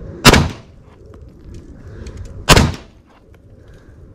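Two semi-automatic pistol shots about two and a quarter seconds apart, each a sharp crack that trails off briefly.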